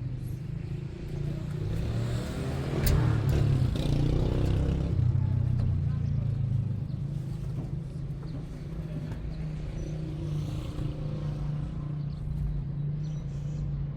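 A motor vehicle running, a low rumble that swells and is loudest a few seconds in, with one sharp click about three seconds in.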